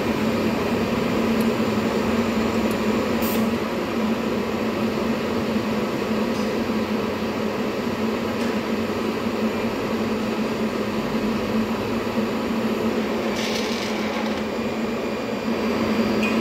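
Steady hum and hiss from a TIG welding machine and its water cooler running while welding at about 375 amps, with a couple of brief clicks.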